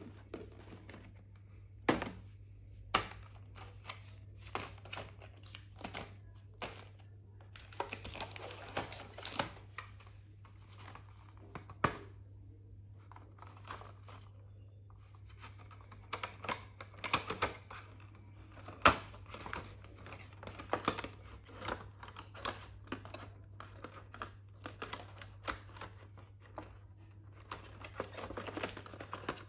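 Hands handling plastic blister and box packaging of stationery sets: crinkling and rustling plastic with scattered sharp clicks and taps. A low steady hum runs underneath.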